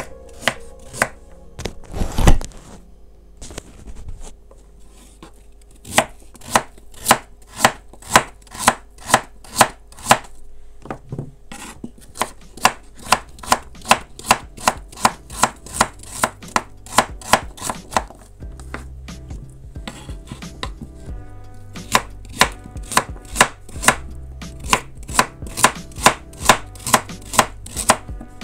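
A knife chopping food on a cutting board in steady, sharp strokes about two a second, pausing briefly now and then. One heavier thump comes about two seconds in.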